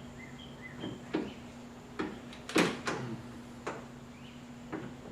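Scattered sharp clicks and knocks of hands working a lock linkage rod's plastic retaining clip on a truck door latch, about seven in all, the loudest about two and a half seconds in. A steady low hum runs underneath.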